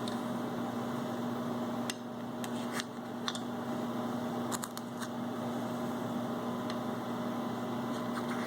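Light, scattered clicks and taps as carbon vanes are slid into the slots of a rotary vane compressor's rotor, over a steady machine hum.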